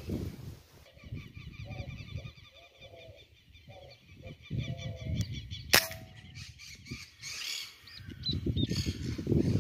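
A single sharp shot from a PR900S PCP air rifle a little past the middle. Birds call in the trees during the first half.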